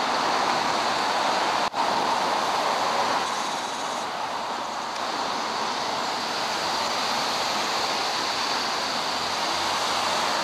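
Steady road traffic noise from a busy street, a continuous wash of passing cars, dropping out for an instant about two seconds in before running on unchanged.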